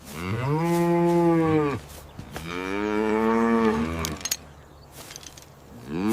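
Cow mooing: two long moos, each rising at the start and then held, with a third moo beginning near the end.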